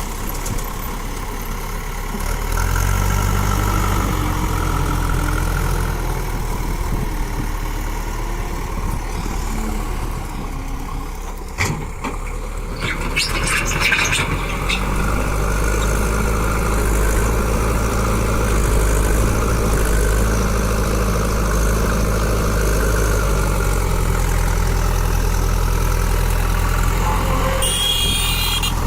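JCB backhoe loader's diesel engine running steadily, growing louder about two to three seconds in and again from about halfway through as it works. A single sharp knock comes near the middle, followed by a short rattle.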